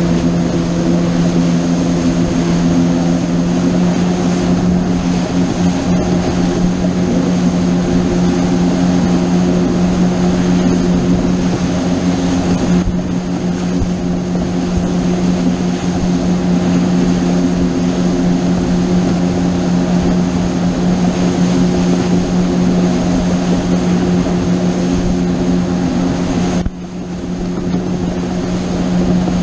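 Boat engine running steadily under way, a low hum with the rush of wind and water around it. Near the end it drops suddenly and then builds back up.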